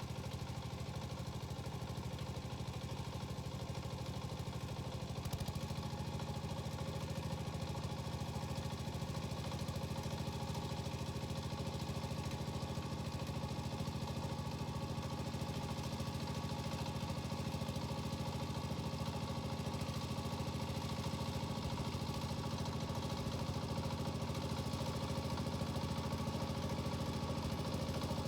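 Yanmar walk-behind tiller's single-cylinder diesel engine running steadily, speeding up slightly about five seconds in and then holding a steady beat.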